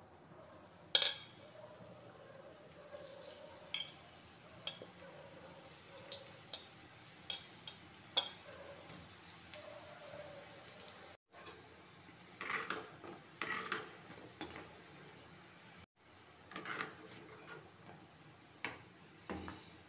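Soya manchurian balls being dropped into hot oil in a metal kadai and deep-frying: a soft sizzle with scattered sharp taps and crackles, the loudest tap about a second in and bursts of crackling in the second half.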